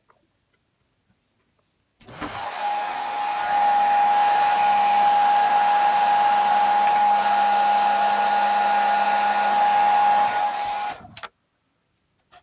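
A small electric motor running steadily with a high whine, starting about two seconds in and stopping near the end.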